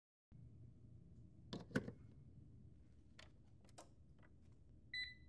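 Sharp plastic clicks and knocks, the loudest just under two seconds in, as a power cord plug goes into a wall outlet and the Lexmark MS821 printer's power button is pressed. A short electronic beep follows near the end.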